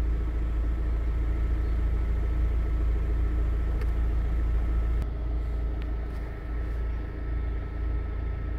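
Volkswagen 1.9 TDI PD diesel engine idling steadily. About five seconds in there is a cut, after which it idles with the injection timing corrected, its torsion value now reading zero instead of the off-spec 5.4.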